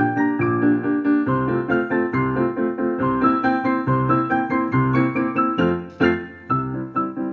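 Digital piano playing a four-hands duet: a melody in the upper part over a steadily repeating bass accompaniment, with a brief lull about six seconds in.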